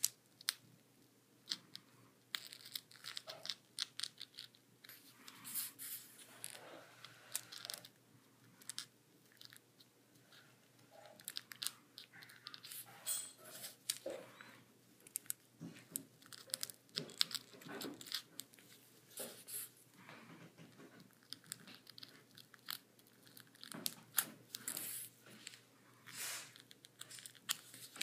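Toothpick point scratching and crunching into a styrofoam block as a shape is carved into it: a faint, irregular run of short scratchy crackles.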